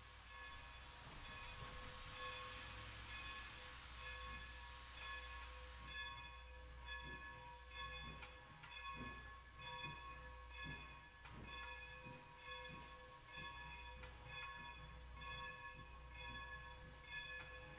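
Faint railroad grade-crossing bell ringing in steady repeated strikes as a steam locomotive approaches, with low chuffs from the locomotive's exhaust underneath from about seven seconds in.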